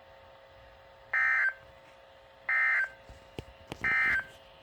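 Weather radio end-of-message data tones: three short, buzzy bursts of digital tones, about a second and a half apart, signalling the end of the severe thunderstorm warning broadcast.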